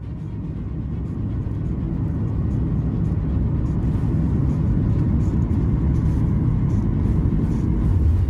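Aircraft noise: a steady low rumble that swells over the first couple of seconds, then holds.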